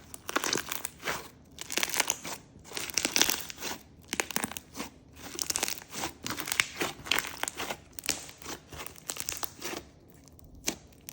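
Clear slime mixed with fishbowl beads and pearls being squeezed and kneaded by hand, giving crunchy crackling bursts about once a second, thinning out near the end.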